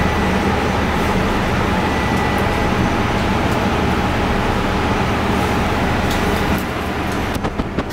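Steady mechanical hum and rumble with a faint high whine, easing off a little about six and a half seconds in, followed by a few faint clicks near the end.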